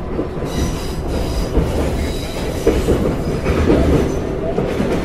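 Subway train running, heard from inside the car: a steady low rumble of wheels on the rails, with a brief high squeal about half a second in.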